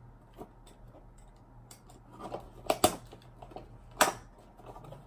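Small hand blade cutting into the tape and seams of a cardboard box, with scratching, light ticks and two sharp clicks about three and four seconds in.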